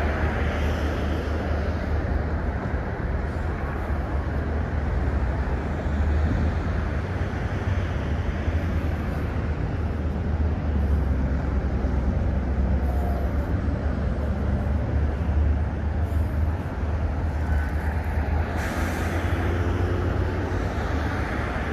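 Steady city road traffic noise with a deep rumble, and a short hiss about nineteen seconds in.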